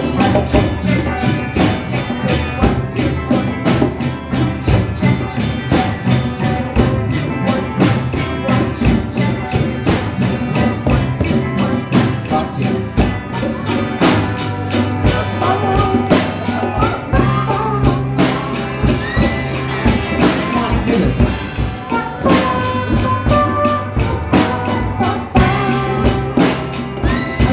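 Youth rock band playing live: electric bass and guitar over a steady drum-kit beat and hand drums, with voices singing in the second half.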